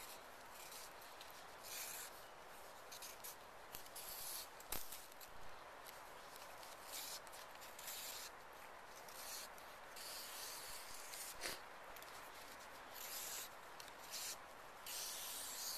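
Knife blade scraping along a strip of saw palmetto, repeated scraping strokes about every second or so, with a couple of light clicks. The palmetto is being shaved thin so it becomes flexible enough for basket stitching.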